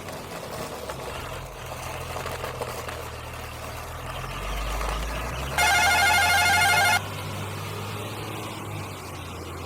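Electronic toy vehicle sound effects: a steady low engine rumble, with a loud warbling electronic tone, like a ringing phone, for about a second and a half just past the middle.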